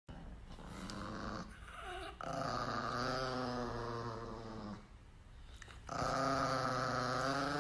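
Small white chihuahua growling: two long, steady growls, the first from about two seconds in and the second near the end.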